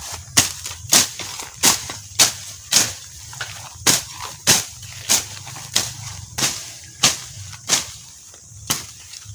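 Hand sickle slashing through weedy grass in rapid free swings, without the stems being held. Each stroke is a short, sharp cutting sound, coming a little under two a second and spacing out near the end.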